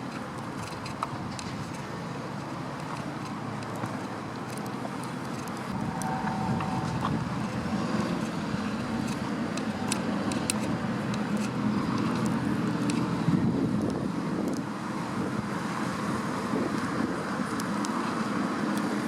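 Road traffic going by: a steady rumble of passing cars that swells a little louder about a third of the way through.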